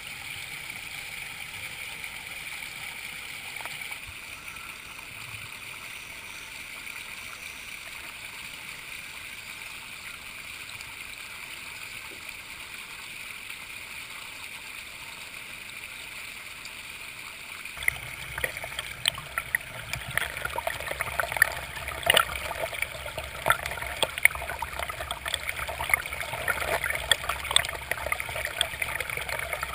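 Creek water running over rocks, a steady rushing hiss. It changes abruptly about two-thirds of the way in to louder, closer babbling with many sharp gurgling pops.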